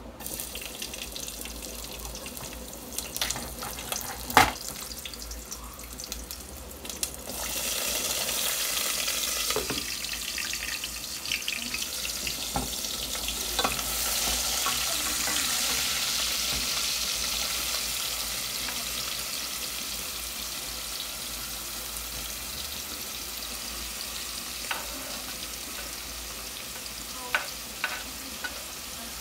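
Chopped onion, peppers and grated carrot frying in a hot aluminium pot: a sizzle that swells about a quarter of the way in as the vegetables go in, then slowly dies down. A few sharp knocks and scrapes of a wooden spoon against the chopping board and pot.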